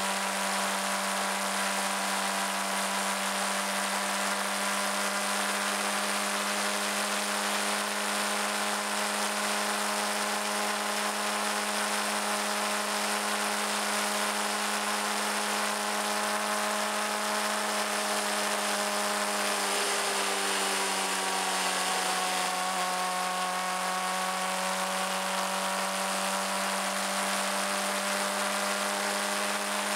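Suzuki GSX-R600 inline-four engine running at a steady cruising speed, with wind noise over the microphone. About two-thirds of the way through, the engine pitch drops a little and then holds steady again.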